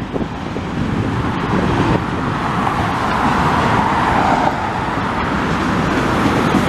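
Road traffic on a multi-lane highway: cars passing close by, a steady rush of tyre and engine noise that grows louder over the first two seconds.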